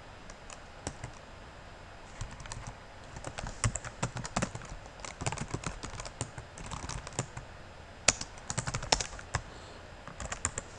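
Typing on a computer keyboard: irregular runs of key clicks, sparse near the start, with one louder keystroke about eight seconds in.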